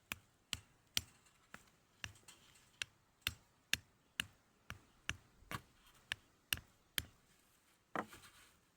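A hammer driving a wooden stake into the ground: a steady run of sharp blows, about two a second.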